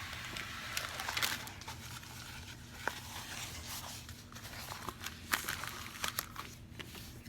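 Rustling and crinkling of plastic packaging and a diamond painting canvas being handled, with scattered light clicks and taps; a louder cluster of clicks comes about a second in and another around five seconds in.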